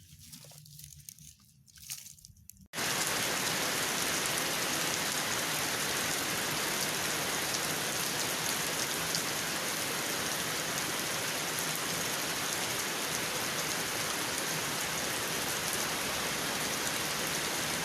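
Steady rain falling, a dense even hiss that starts abruptly about three seconds in.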